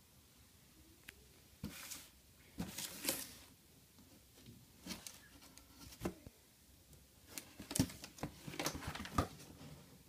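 Cardboard box being handled and turned over: irregular scrapes and rustles with a few sharp knocks, coming in short clusters.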